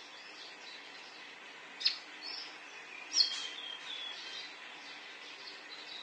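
Caged konin, a small sunbird, giving a few short, sharp, high chirps, the loudest about three seconds in, running into a brief falling trill. This is the konin call used as a lure to get other birds calling.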